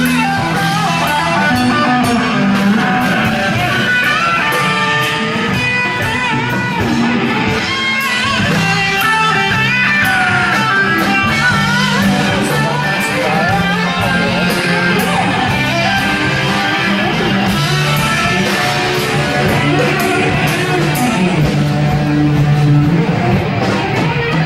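Live band playing rock music, an electric guitar carrying the melody over bass guitar, at a steady loud level.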